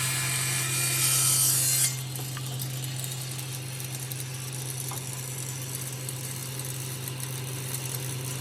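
Power saw cutting through a wooden leg along a guide, louder and brighter for about the first two seconds while the blade is in the wood. It then runs on steadily without load until the sound cuts off abruptly at the end.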